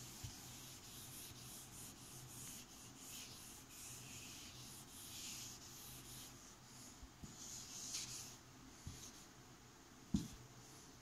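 Faint swishing of a whiteboard eraser rubbing back and forth across a whiteboard, wiping off marker writing. A single soft thump about ten seconds in.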